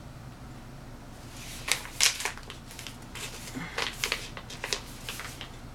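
Ready-to-heat rice pouch crinkling in the hands as it is gripped and turned over: a run of sharp, irregular crackles starting a little over a second in and dying away near the end.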